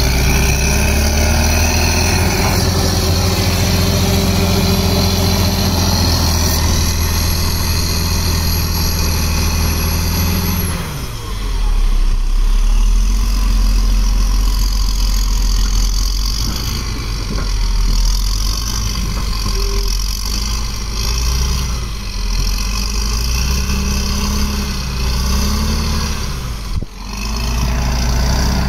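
Crawler bulldozer's diesel engine running under load as the blade pushes soil and brush. It holds high revs for the first ten seconds or so, then drops and rises several times.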